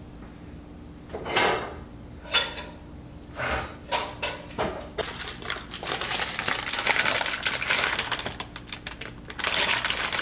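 Kitchen handling noises: a few separate knocks and clatters of things being picked up and set down, then a long run of crackly rustling as a plastic food bag is handled and opened.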